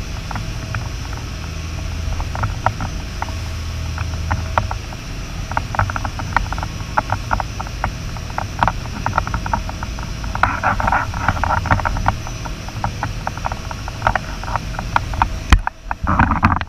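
Dive boat running through rough water: the steady low drone of its engines under constant rattling and clattering of loose gear as the hull pitches, busiest about ten seconds in, with a sharp knock near the end.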